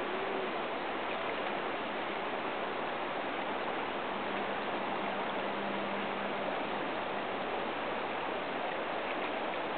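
Steady rushing of river water flowing over rocky shoals, an even hiss that does not change.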